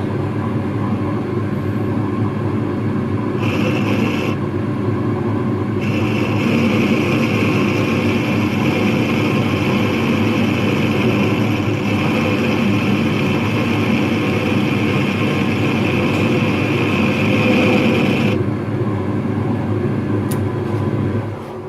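A workshop power tool's electric motor running steadily for about twenty seconds. A higher hissing whine comes in and out over it, as the tool works on the part and then runs free.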